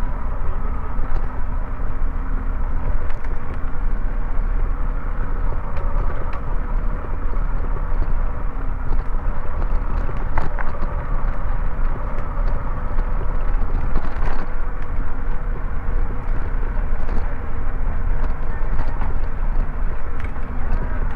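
Steady low rumble of a bicycle-mounted GoPro riding along a city street: wind and road noise on the microphone, with a few scattered clicks and knocks.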